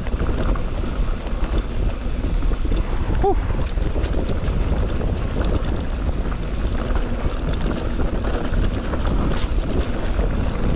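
Wind rushing over an action camera's microphone on a mountain bike ride, with a steady low rumble of tyres and the bike rattling over rough trail.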